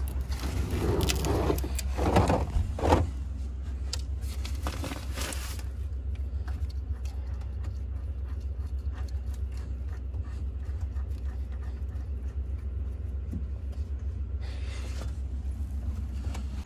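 Bolt latch on a shed door being slid back and the rusty sheet-metal door pulled open, rattling and scraping several times in the first three seconds, followed by lighter clicks and rustling. A steady low rumble runs underneath.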